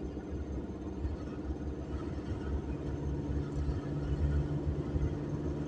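Car's engine and road noise from inside the cabin while driving: a steady low rumble with an engine hum.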